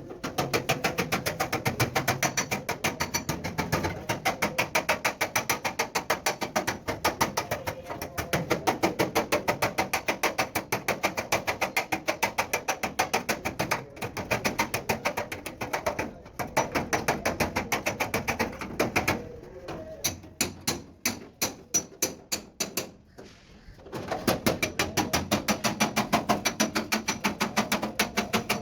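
Rapid hammer blows on sheet metal, about six or seven a second, typical of panel-beating a truck cab's body. The blows stop for short breaks and slow to separate strikes a little past the middle.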